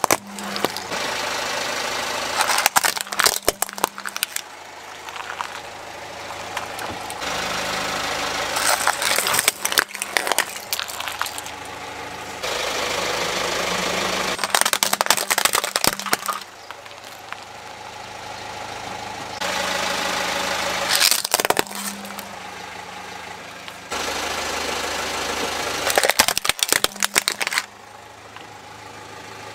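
Car engine idling as the tyre rolls slowly over plastic toy vehicles. About five short bursts of plastic cracking and crunching as each toy is crushed.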